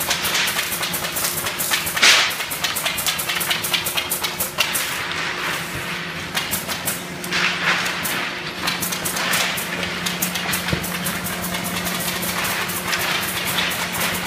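Factory machinery running with a steady hum under a fast, continuous clatter of knocks, a few louder swells of noise standing out along the way.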